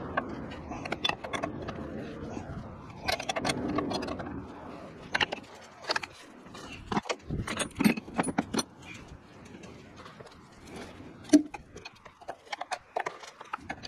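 Hand tools clinking and knocking against metal under the hood of a Ford F-250 Super Duty, in many short, irregular clicks, as a socket and wrench are handled around the brake line fittings of a newly installed brake master cylinder.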